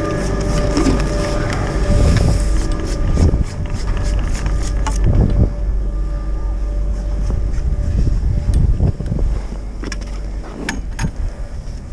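Chairlift machinery at the loading station: a steady mechanical hum with a few held whining tones, and knocks and clatter as the chair picks up the riders, over a low wind rumble on the microphone. The hum fades after about six seconds as the chair climbs away.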